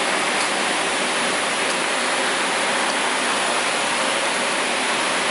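Steady, even hiss of background noise with no rhythm, and a few faint ticks.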